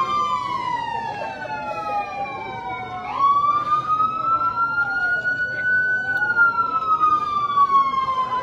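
Two or more emergency-vehicle sirens sounding at once, their slow rising and falling wails crossing over one another, above the noise of a large crowd.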